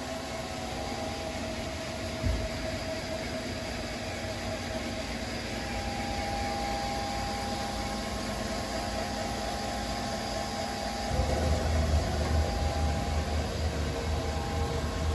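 2003 Haas SL-30T CNC lathe running under power, a steady machine hum with a few steady whining tones. There is a single knock about two seconds in. About eleven seconds in, the sound changes to a louder, uneven low rumble.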